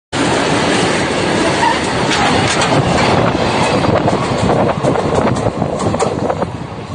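Train passing close by: a loud rumble with the rapid clatter of wheels on the rails, easing off near the end.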